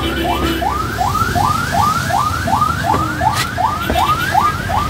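Emergency vehicle siren on a fast yelp, short rising whoops repeating about three times a second, heard from inside a moving vehicle over the low rumble of its running. A single sharp knock sounds about three and a half seconds in.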